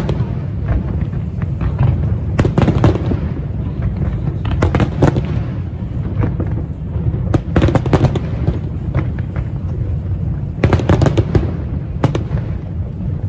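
Aerial fireworks display: a continuous low rumble of shell bursts, broken every couple of seconds by clusters of sharp crackling reports.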